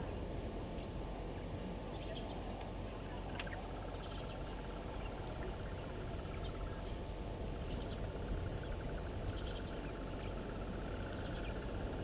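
Outdoor bush ambience: a steady background hiss with faint, scattered small bird chirps. A fast, evenly pulsing trill joins about four seconds in, and there is one sharp click a little over three seconds in.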